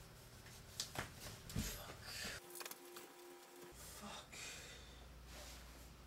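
Faint rustling of clothes with a few light knocks and thumps as a person hurriedly pulls on socks and a shirt. The low room hum drops out and comes back abruptly partway through.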